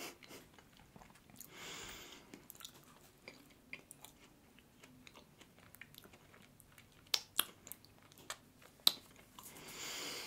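Quiet chewing of a soft glazed doughnut, with small wet mouth clicks and a few sharper ones, and a couple of soft breaths.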